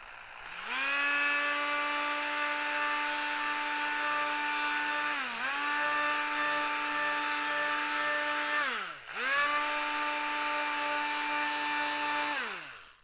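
Oscillating multi-tool with an 80-grit triangular sanding pad sanding a hardwood wing spar down flush with the ribs: a steady motor hum that spins up about half a second in, dips briefly about five seconds in, stops and restarts a little after eight seconds, and winds down near the end.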